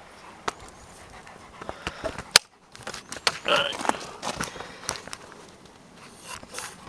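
Scattered light clicks and knocks of things being handled, with one sharp click about two and a half seconds in.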